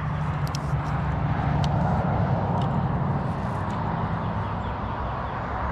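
Steady engine drone of a passing motor vehicle, swelling to its loudest about two seconds in and then slowly fading, with a few faint, short, high ticks over it.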